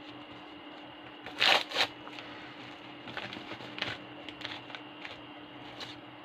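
Hands handling paper and plastic card packaging: two sharp, louder rustles about a second and a half in, then lighter scattered crinkles and taps as the last item of trading-card mail is opened.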